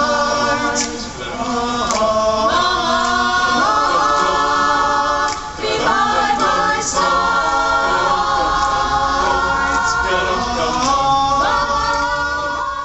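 Choir singing a cappella in harmony, holding long chords that change every second or two, with the last chord dying away near the end.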